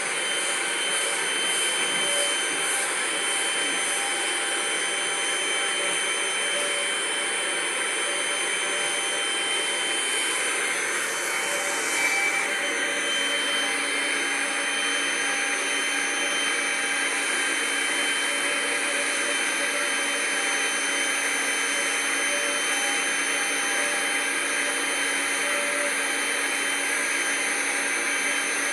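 Vacuum cleaner motor running steadily at full power, a loud even rush of air with a constant whine on top.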